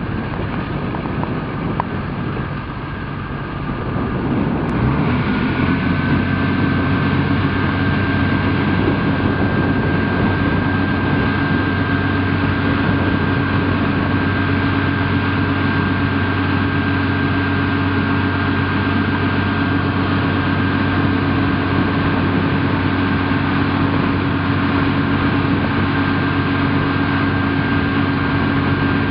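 Farm tractor engine running steadily. About five seconds in it speeds up and holds at a higher, louder pitch with a steady whine, while the tractor drives the raised self-tipping trailer that dumps sugar cane.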